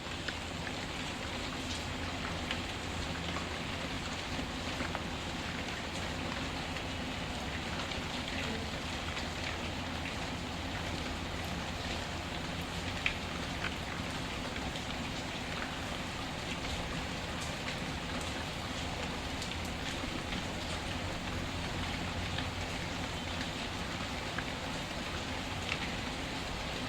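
Steady rain falling, with a few sharp crackles from a wood fire scattered through it, the loudest about halfway through.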